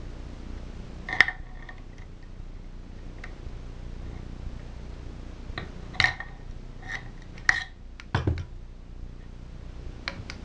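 Sharp metallic clinks of a torque wrench and socket on the connecting-rod cap bolts in a Tecumseh small-engine crankcase: a handful of separate clicks, most of them about six to seven and a half seconds in, then a duller thump around eight seconds in. A faint low hum runs underneath.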